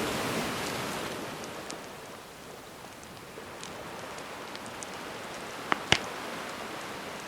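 A gentle sea wave washes in and draws back, easing off over the first two seconds, while a wood fire crackles with small scattered snaps. Two sharp, loud pops from the fire come close together about six seconds in.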